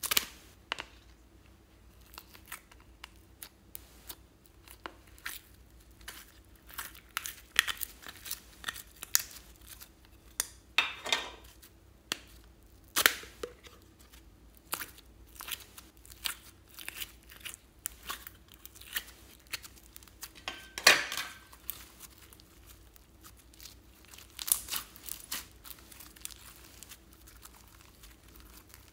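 Plastic slime tub being opened and handled, its lid snapping off with a sharp click, then foam-bead slime crackling, popping and tearing as it is pulled apart. Scattered clicks and crinkles, with a few louder snaps.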